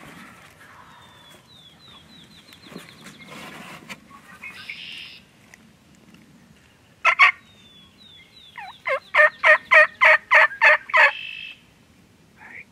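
Turkey yelping: a loud short double note about seven seconds in, then a run of about ten loud, evenly spaced yelps at roughly four a second. Before that comes a thin, high trill of quick falling chirps.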